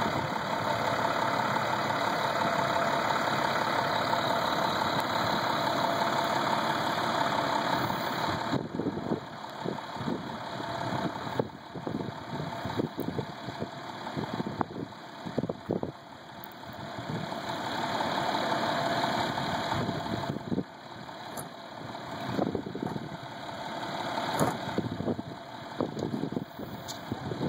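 Engine of a medium-duty truck carrying a bridge inspection lift, idling steadily. About eight seconds in, the steady sound drops away and turns uneven, with scattered knocks and slow swells in loudness.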